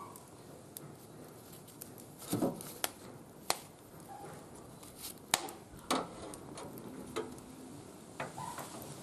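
Wood fire burning in a barbecue grill, crackling with irregular sharp pops and a few louder snaps.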